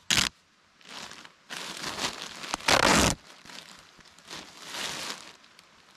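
Black plastic garbage bag crinkling as it is handled and folded, with duct tape pulled off the roll to tape a seam. Several irregular bursts of crinkling and tearing, the loudest about halfway through.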